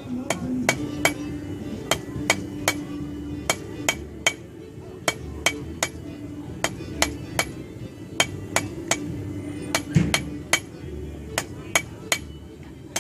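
Blacksmith's hammer striking work on an anvil, sharp ringing blows in uneven runs of about two to four a second.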